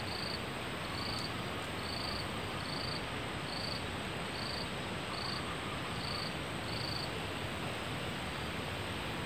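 Forest ambience: an insect chirping in short, evenly spaced high-pitched pulses about one and a half times a second, which stop near the end. Underneath run a steady hiss and a constant high thin tone.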